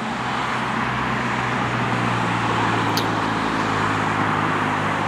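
Road traffic passing: a steady hiss of car tyres and engines, with a low engine drone that swells over the first couple of seconds.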